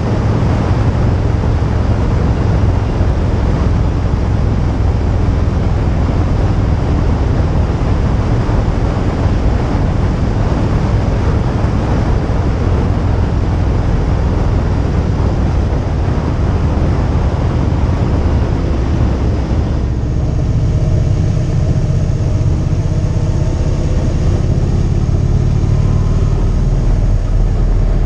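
Motorcycle running at road speed, with a steady rush of wind over the microphone mixed with engine and road noise. About two-thirds of the way through the wind hiss eases and the engine's pitched note stands out more.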